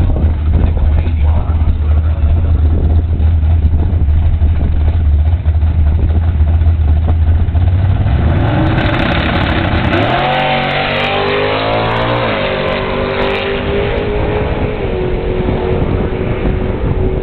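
Drag cars, among them a stock 1989 Mustang 5.0's V8, idling with a low rumble at the start line, then launching about eight seconds in. The engine note rises, steps down at a gear change and rises again, then fades as the cars run away down the strip.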